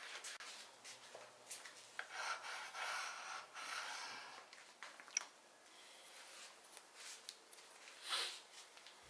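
Faint rubbing and scraping, with scattered small clicks, from hands working on a surfboard.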